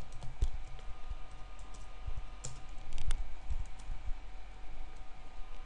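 Typing on a computer keyboard: irregular keystrokes, clicks at an uneven pace, over a faint steady electrical hum.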